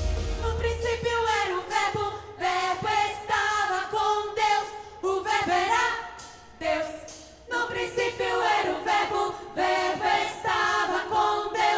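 Choir singing a Christmas cantata in Portuguese, phrases held and then broken off, over a low bass note that fades in the first second or two.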